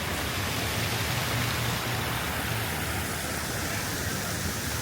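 Fountain water splashing and falling steadily, with a low city hum underneath.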